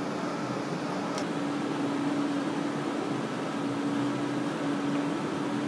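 Steady street background noise: a constant low mechanical hum over an even hiss, with no distinct events.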